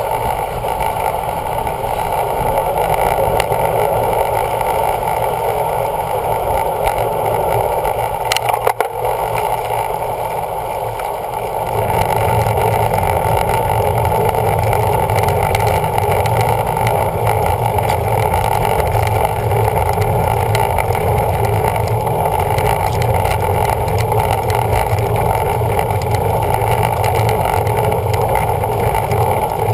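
Steady rush of wind buffeting a bike-mounted camera's microphone while riding a road bike. A single click about nine seconds in, and the low rumble grows louder about twelve seconds in.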